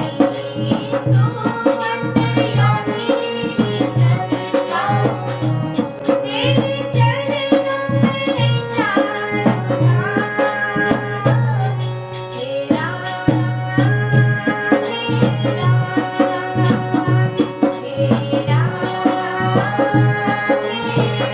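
Devotional bhajan music: tabla keeping a steady rhythm under a gliding melodic line and a sustained low drone.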